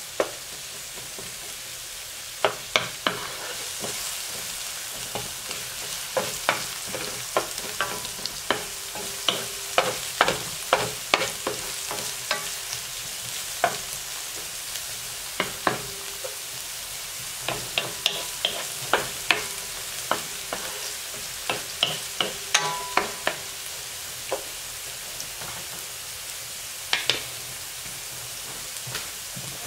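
Chopped red onion and garlic sizzling in oil in a nonstick frying pan, with a steady hiss, while a wooden spatula stirs them, scraping and knocking against the pan in irregular clicks.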